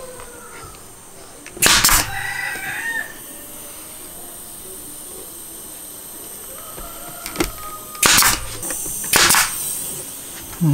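Pneumatic brad nailer driving nails through wooden slats into a cabinet door frame, three shots each with a short burst of air. The first comes about two seconds in, and two more come close together near the end.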